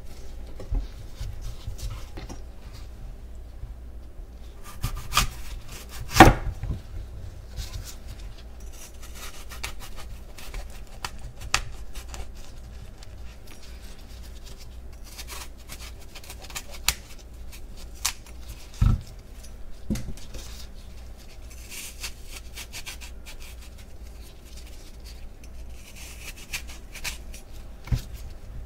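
Chef's knife cutting apples on a wooden cutting board: the blade crunching through the fruit in short strokes and knocking on the board, with a few sharper knocks, the loudest about six seconds in.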